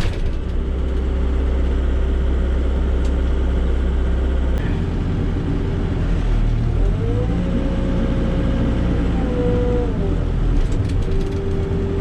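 Volvo BL70 backhoe's diesel engine running steadily, its note shifting about four and a half seconds in. A whine rises, holds and falls back over a few seconds in the middle as the machine is worked.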